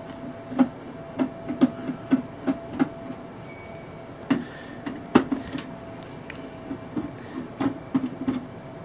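Hand screwdriver working screws out of the bottom panel of a Sony CMT-HPZ9 mini hi-fi: irregular small clicks and knocks, a dozen or so, as the tip seats in and turns the screw heads.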